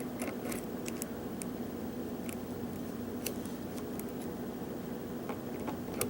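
Faint, irregular metallic clicks and taps of a lock pick working the pin stacks of a Euro cylinder lock under a tension wrench, over a steady low hum.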